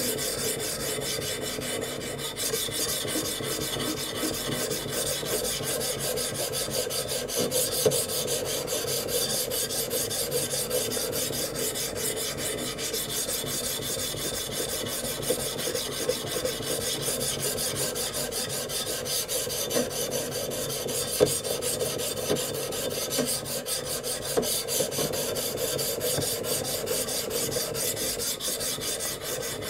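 Silicon carbide stone on a guided knife-sharpening system stroking back and forth along a steel knife blade: a steady scraping rasp. The coarse stone bites fast, levelling an uneven bevel.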